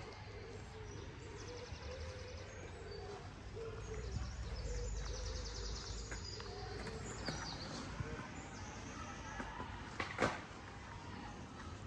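Outdoor ambience: small birds singing in repeated trills over a low rumble that swells around the middle, with a sharp knock near the end.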